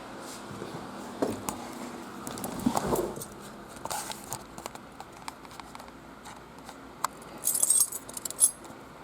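Car keys jangling and clicking as they are handled, with a brighter jingle of keys about three quarters of the way through.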